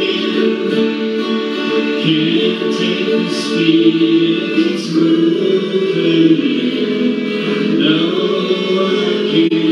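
Live acoustic guitar with a man and a woman singing together into microphones.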